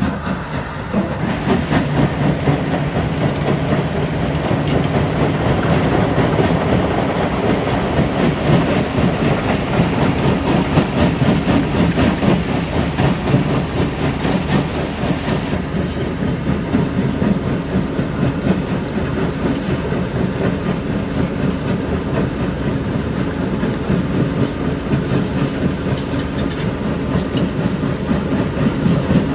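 Tracked mobile rock crusher running under load, with a steady dense rattle and crunch of rock passing through it over the drone of diesel engines.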